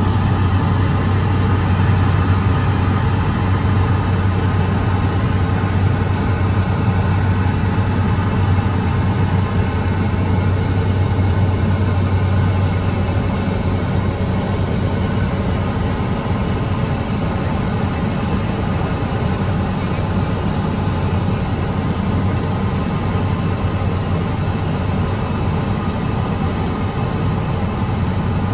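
Steady drone of a Cessna 208B Grand Caravan's single PT6A turboprop engine and propeller, heard from inside the cockpit in flight: a strong low hum with air and engine noise over it.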